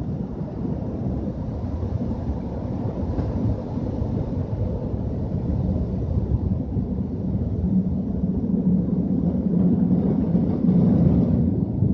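A steady low rumble heard from inside a car's cabin as the car rolls forward, getting somewhat louder toward the end, with the higher hiss dropping away shortly before the end.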